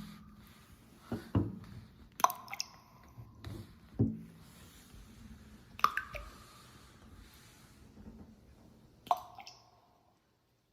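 A few sharp clicks and duller knocks at irregular intervals, some clicks with a brief ringing tail; near the end the sound drops away to silence.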